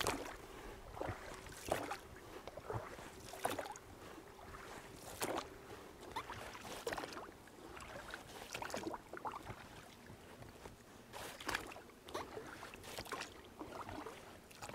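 A small boat being rowed: the oar strokes splash and drip in the water about once a second, in an uneven rhythm.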